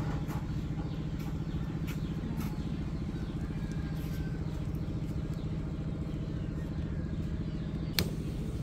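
Steady low drone of an engine running at idle, with a rapid, even pulse. A single sharp click about eight seconds in.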